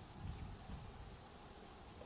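Faint outdoor ambience: a steady high-pitched insect trill over a low rumble.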